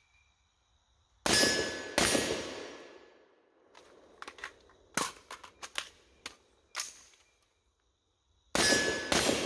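Troy AR-15-style rifle in 5.56 firing two quick shots about a second in, each with a ringing tail. Then a run of metallic clicks and clacks from a magazine change: the empty magazine pulled, a fresh one seated and the bolt sent home. Two more shots near the end.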